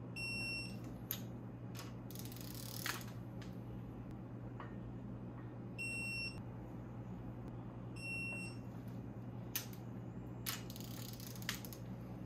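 Electronic torque wrench beeping as each head stud reaches its set torque: three short high beeps, near the start, about six seconds in and about eight seconds in. Between them the wrench's ratchet clicks and rattles as it is reset on the next stud.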